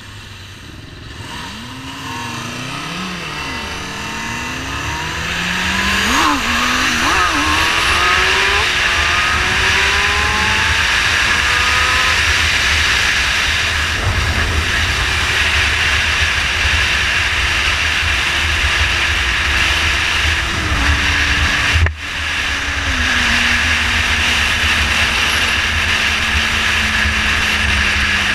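Kawasaki Ninja ZX-6R's inline-four engine pulling away and revving up through several gear changes, its pitch climbing and dropping, then cruising with loud wind rush over the microphone. A brief dropout and thump about three-quarters of the way through.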